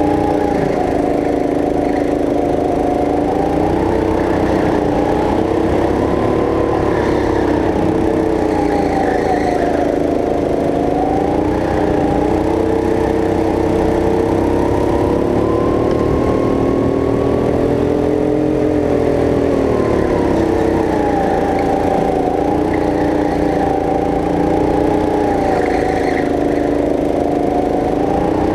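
Go-kart engine running hard, its pitch climbing and dropping again and again as the kart speeds up on the straights and slows for the corners, over a steady low rumble.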